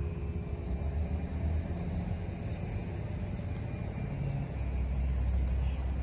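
Outdoor low rumble of passing street traffic, swelling louder over the last second or two.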